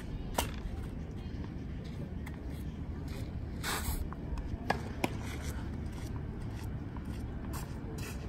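Outdoor ambience with a steady low rumble of wind on the microphone. A few sharp knocks stand out: one about half a second in and two close together around five seconds in. There are short scuffing sounds around four seconds and near the end.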